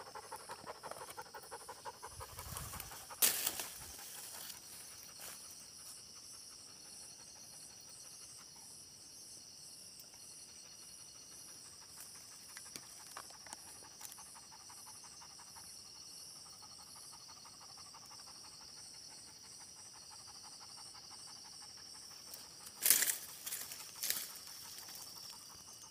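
A dog panting rapidly, clearest in the first few seconds and fainter later, over a steady high-pitched insect trill. A sharp click comes about three seconds in, and two loud sharp knocks come near the end.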